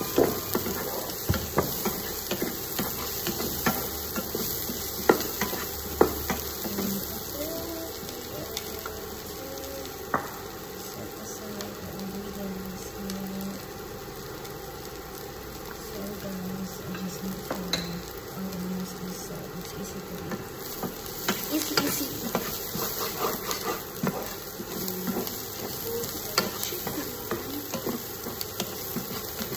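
Chopped garlic, ginger and onion sizzling in oil in a nonstick wok. A wooden spatula stirs and scrapes them, with frequent sharp taps against the pan. The stirring stops for a few seconds midway, leaving only the sizzle, then starts again.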